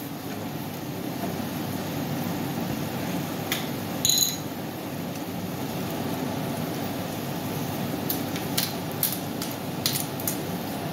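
Sliced mushrooms and shallot frying in a pan, a steady sizzle with scattered clicks of stirring. A short high tone sounds about four seconds in.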